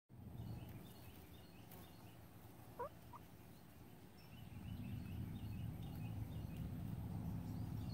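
A silkie hen gives one short rising call about three seconds in, over faint high chirping. A low outdoor rumble grows louder in the second half.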